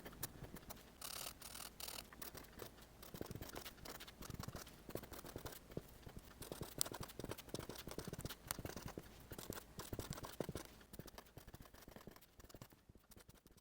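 Stylus tapping and scratching quickly and unevenly across a tablet screen covered with a protective film, with a few sharper ticks.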